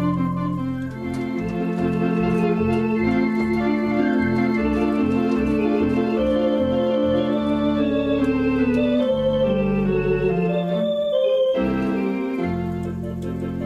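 Conn 650 electronic theatre organ playing a tune: sustained chords under a melody, over a bass line of short repeated notes. The bass drops out briefly about eleven seconds in.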